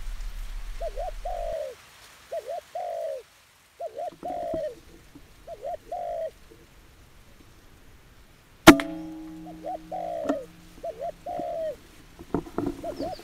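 Wild dove cooing in repeated phrases, each two short notes and then a longer falling coo, about every one and a half seconds. About two-thirds through comes a single sharp crack, the loudest sound, followed by a few fainter clicks, and the cooing carries on after it.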